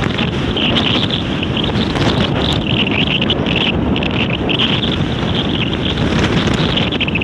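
Strong wind buffeting the microphone in a constant low rumble, with a fluctuating high hiss over it.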